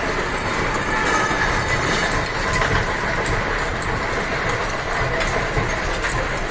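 Rajkot-built lathe running, a steady mechanical noise with a continuous rattle and clatter from the machine.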